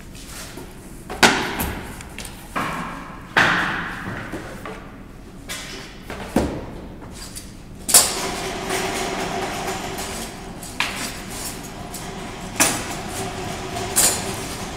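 Wooden furniture parts and cardboard being handled and stacked on a packing table: a string of separate knocks and thuds, about eight in all. A steady hum joins in about eight seconds in.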